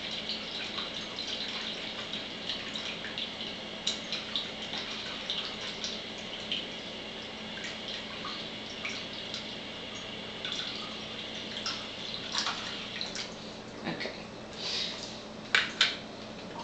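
Water from a water ionizer's spout running in a thin stream into a plastic container, a steady trickle with small drip ticks. A few louder sharp clicks come near the end.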